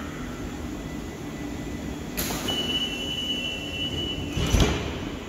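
Munich U-Bahn train's sliding doors closing: a sudden hiss of air about two seconds in, then a steady high warning beep for about two seconds, then a loud thump as the doors shut.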